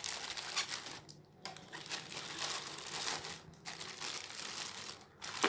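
Plastic courier mailer bag crinkling and rustling as hands pull it open, in several runs with short pauses between them.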